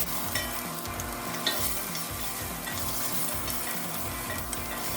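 Chopped garlic and onion sizzling in hot olive oil in a pot, stirred with a utensil that clicks against the pot a few times.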